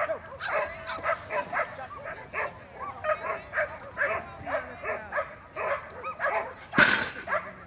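A dog barking over and over, about two or three short barks a second. Near the end, one sharp loud bang as the agility teeter board slams down.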